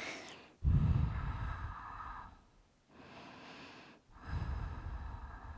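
A woman breathing slowly and deeply: three long breaths, the middle one quieter.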